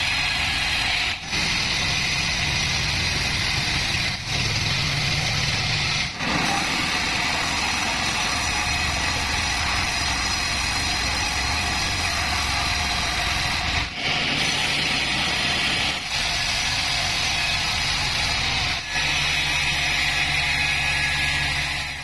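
Pandan Taiwan Bandsaw36 band sawmill running as its blade cuts lengthwise through a young sengon log: a steady high cutting noise over the low hum of the machine, breaking off briefly several times. Near the end the cutting noise thins and mostly the machine's steady hum remains.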